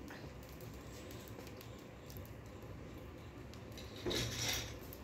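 Steel cooking vessels handled beside a wood-fired chulha: a faint steady background, then a brief scraping noise about four seconds in.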